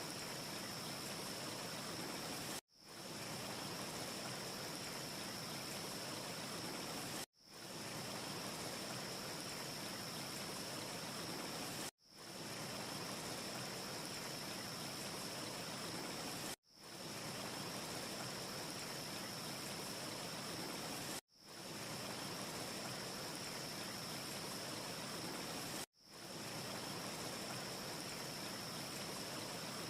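Steady, even rushing noise with a faint high hiss. About every four and a half seconds it cuts out for an instant and fades back in: a short ambience recording looped end to end. No fire crackles stand out.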